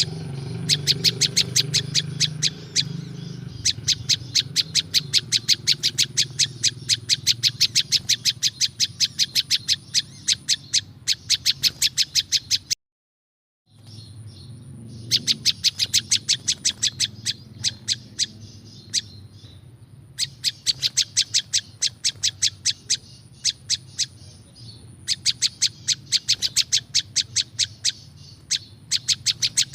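Prinjak lumut songbird calling: runs of sharp, rapidly repeated chirps, about four or five a second, each run lasting several seconds, with a brief complete silence about thirteen seconds in.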